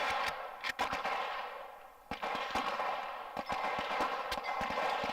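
Gunshots from several guns on a busy shooting range, irregular, with quick runs of shots after about two seconds.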